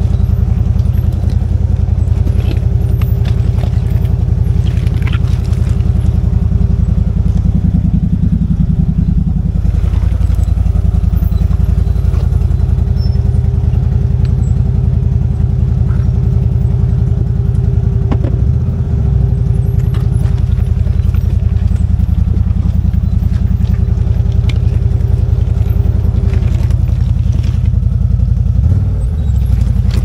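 CFMOTO ZFORCE 950 HO Sport side-by-side running steadily under way, with a constant whine above the engine note that fades out near the end. Scattered sharp clicks and clatter come from the machine over rough ground.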